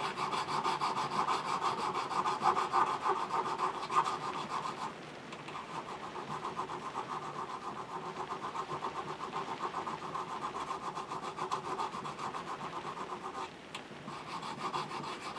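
Needle file rasping back and forth in quick, even strokes along the edges of a metal connecting rod held in a vise, cleaning off machining marks and smoothing the shoulders. The filing goes a little quieter about five seconds in.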